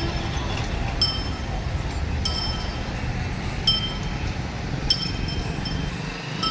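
Metal bells on walking elephants clinking with a short ringing note, about once every second and a quarter, over a steady low street rumble.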